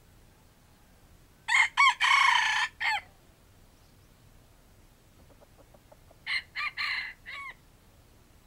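Red junglefowl (wild chicken) rooster crowing twice: a loud crow about a second and a half in, then a shorter, quieter crow about five seconds later.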